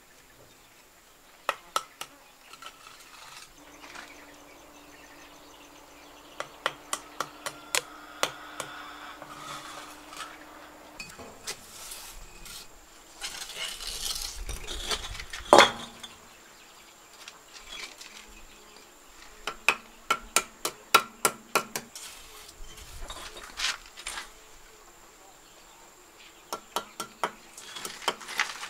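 A steel trowel working hollow clay bricks and mortar: runs of quick sharp taps as bricks are knocked into place, a stretch of scraping mortar, and one louder knock about halfway through. A faint steady insect buzz sits underneath.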